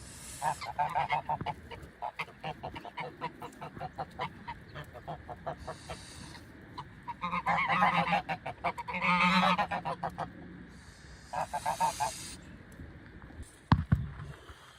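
Geese honking in bursts of rapid, repeated calls, loudest in the middle, with one sharp knock near the end.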